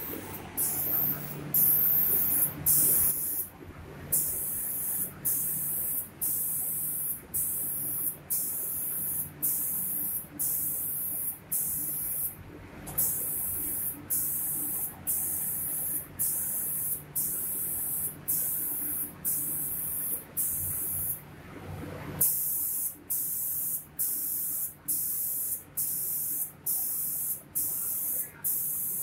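Automatic spray-painting machine for cabinet doors: the spray gun hisses in repeated bursts, about one a second with short breaks between them, over a steady low machine hum.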